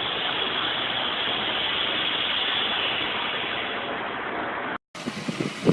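Motorcycle engine running steadily; the sound cuts off abruptly near the end.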